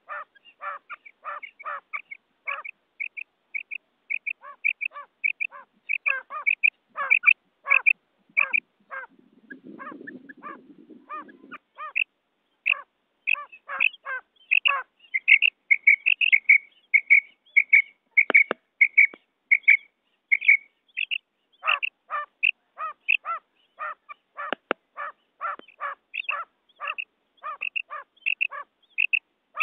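Female quail (batair) calling over and over in short, quick notes, about two a second: the call that draws male quail in. About nine seconds in, the calls pause for a couple of seconds behind a brief low rumble, and two faint clicks come later on.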